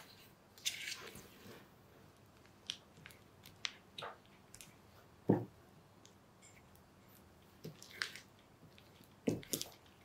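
Silicone spatula mashing soft butter and sugar together in a glass bowl: irregular short squishes and gritty scrapes, with one louder knock about halfway.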